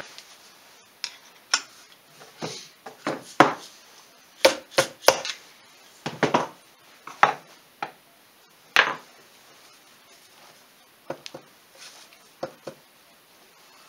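Irregular sharp metal taps, about a dozen with a few fainter ones near the end, as a screwdriver put through a small hole in a Polaris Sportsman 500 crankcase is tapped against the counterbalancer. This keeps the counterbalancer from coming away with the case half while the case splitter separates the crankcase.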